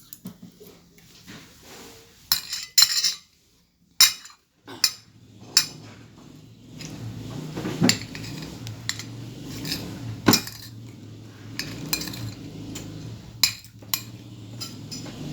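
Cutlery clinking against dishes while a child eats: a dozen or so sharp, irregular clinks, the loudest near the start. A low steady hum comes up in the background about seven seconds in.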